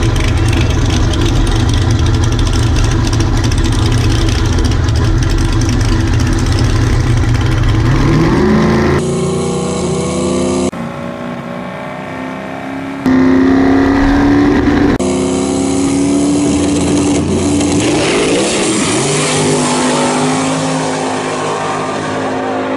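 Turbocharged drag-racing car engine running loud and low, then accelerating hard, its pitch climbing repeatedly as it pulls through the gears. The sound changes abruptly several times partway through.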